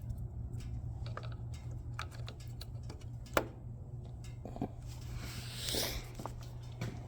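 Small plastic clicks and handling of a 4-pin automotive relay being fitted into a motorcycle's relay panel: scattered light clicks, one sharper click about three and a half seconds in, and a brief rustle near the end, over a steady low hum.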